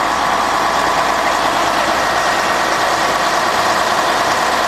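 Long-tail boat engine running at a steady, loud, unchanging drone while underway.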